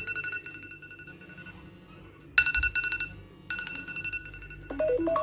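iPhone alarm tone ringing: repeated bursts of fast high electronic beeping on two steady pitches. Near the end a different marimba-like alarm melody starts.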